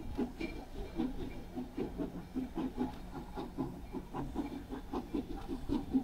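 Steam locomotive No. 332 working in the distance: a quick, uneven run of exhaust chuffs, about four to five a second, with a hiss of steam.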